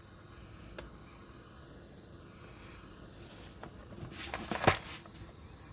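Quiet workshop tone with a faint steady high-pitched whine, broken by a few light clicks. A sharper double knock about four and a half seconds in is the loudest sound, the handling of tools and wiring.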